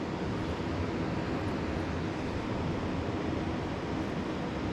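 Steady rushing of creek water flowing over rocks, an even wash with no breaks.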